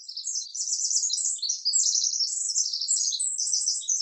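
Rapid, high-pitched bird-like chirping that plays continuously as a quiz countdown sound effect.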